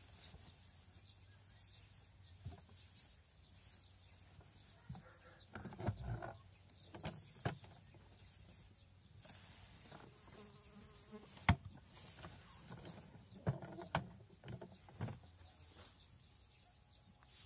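Scattered wooden knocks and clunks from a homemade hand-lever chipboard hay press as its lever is pulled down and the hay is packed, the sharpest knock about eleven seconds in, with rustling hay between. Insects buzz throughout.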